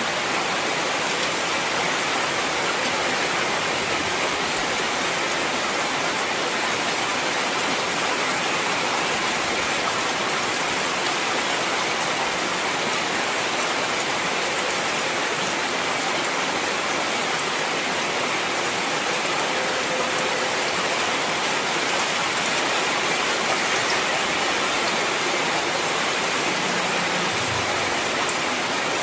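Heavy rain falling steadily, an even, unbroken hiss of dense rainfall.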